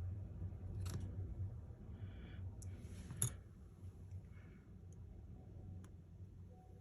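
Small sharp clicks and light handling noise of repair tools on a phone's parts, a few scattered clicks with the loudest about three seconds in, over a steady low hum.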